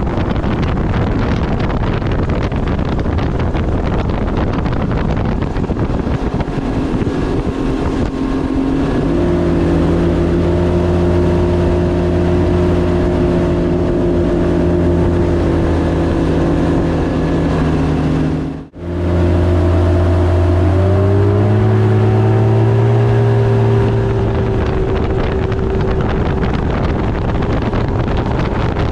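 Nitro Z19 bass boat's outboard motor running at speed under heavy wind noise on the microphone. The engine's pitch steps up slightly a little past the middle, and the sound cuts out for an instant just before that.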